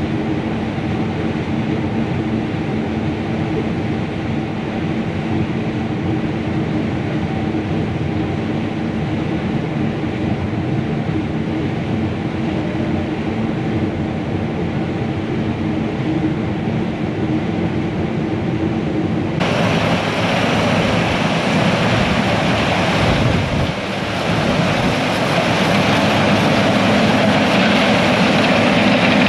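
Large farm machinery running steadily, its diesel engine giving an even drone. About two-thirds of the way through the sound switches abruptly to a louder, rushing machine noise.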